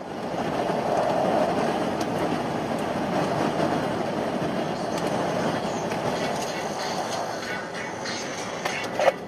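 Steady road noise of a vehicle driving at highway speed, heard from inside the cab: a dense rumble of tyres on the road surface. A sharp knock comes near the end.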